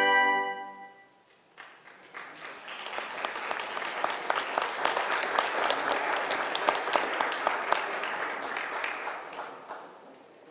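The final held chord of organ and trumpets cuts off about half a second in and rings away in the hall. An audience then applauds, building up, holding, and dying away near the end.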